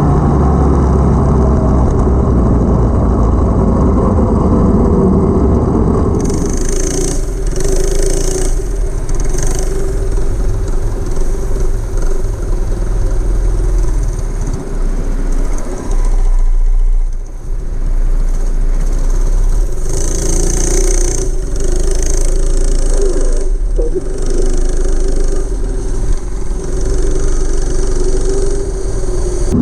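212cc single-cylinder four-stroke go-kart engine with a stage 1 kit, running under throttle as the kart is driven. Its note falls in the first few seconds, then holds mostly steady with a brief dip midway. A rushing hiss joins about six seconds in.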